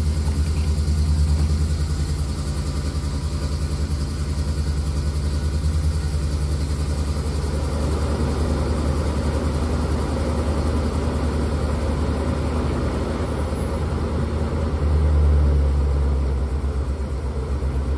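Steady low mechanical drone from the parked Coach House Platinum XL motorhome while its side slide-out room extends, swelling briefly a few seconds before the end.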